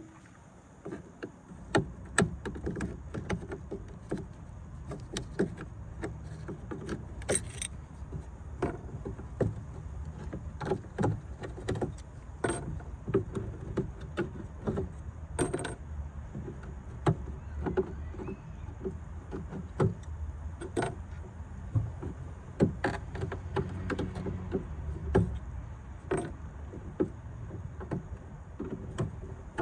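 Metal tools and parts clinking and knocking at irregular intervals, as in wrench and battery-terminal work, over a low steady rumble.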